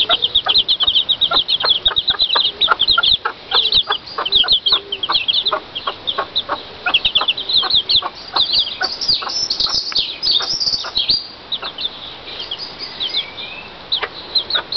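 Pekin bantam chicks peeping, a rapid run of short, high, falling peeps, with a broody hen's low clucking underneath. The peeping thins out about three-quarters of the way through.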